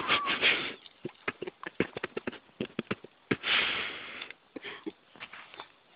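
Heavy, noisy breaths or sniffs: a loud burst at the start and a longer huff about three and a half seconds in, with scattered small clicks between them.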